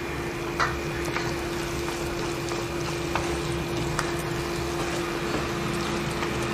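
Onion-tomato masala sizzling in oil in a pan, with a few light clicks of the spoon against the pan as the salt is stirred in, over a steady low hum.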